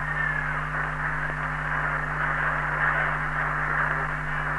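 Steady hiss and static of an open AM CB radio channel, cut off above and below like a radio voice, with a steady low hum underneath, heard on an old reel-to-reel tape recording.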